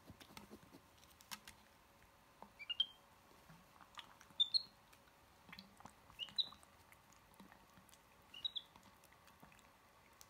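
A golden capuchin monkey mouthing and drinking at a plastic water bottle: faint clicks and smacks, with four short, high, rising squeaks spread about two seconds apart.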